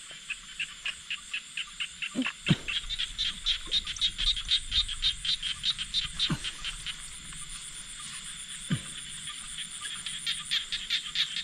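Frogs calling: a long run of high, evenly spaced pulses, about four or five a second, with a few short downward-sweeping calls.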